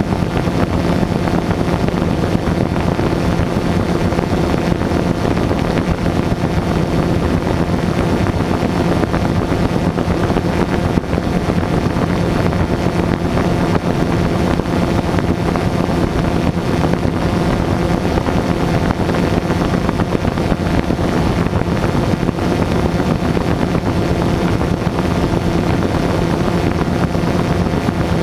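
An FPV drone's motors and propellers running steadily, recorded close up: a constant hum with several held tones over a rushing noise. No separate firework bangs stand out.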